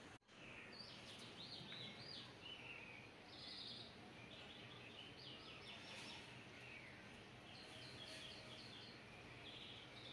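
Faint birdsong: runs of short, quick, high chirps repeating throughout over a low hiss, with a brief dropout just after the start.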